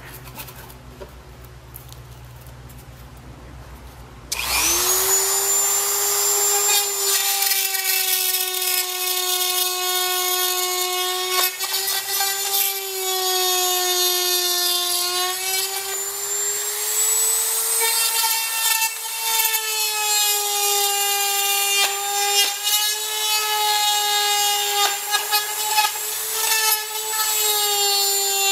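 Dremel rotary tool switched on about four seconds in, quickly spinning up to a steady high whine whose pitch dips and wavers as the bit rough-cuts a hole through an ABS plastic dash panel.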